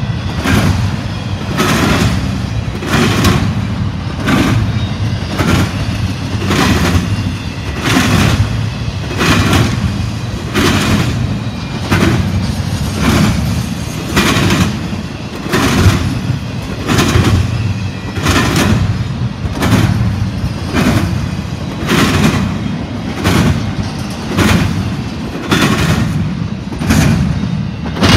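Wheels of a CSX double-stack intermodal train's well cars banging over the track, a steady rhythm of sharp clacks about one and a half a second, over the low rumble of the passing cars.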